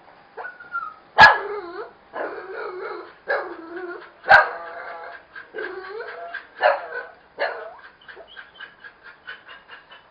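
Dogs barking and yelping at each other through a wire crate, with two loud sharp barks about a second in and about four seconds in, and bending whiny yelps between them. Quick faint ticks run through the quieter stretches.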